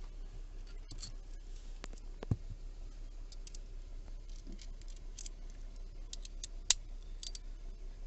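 Scattered light clicks and taps of a T20 bit and hand tool being handled against the plastic steering-column trim, two of them sharper, a little past two seconds in and near the end. Underneath runs a low steady hum from the car's engine left idling.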